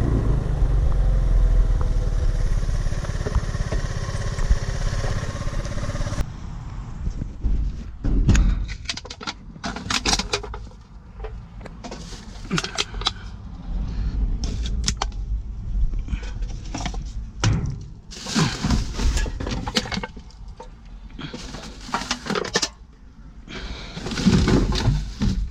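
A vehicle running with a steady low rumble. About six seconds in, after a cut, this gives way to irregular knocks and clatter of hard objects being handled and moved about, as in rummaging through scrap.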